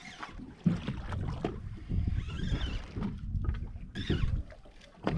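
Wind buffeting the microphone and water noise around an open fishing boat at sea, an irregular low rumble that comes and goes in gusts.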